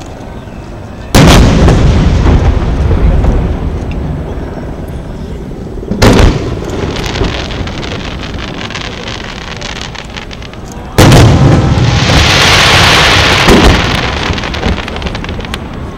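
Aerial firework shells bursting: three loud booms about five seconds apart, each rolling on in a long echoing rumble. The third is followed by about two seconds of dense crackling.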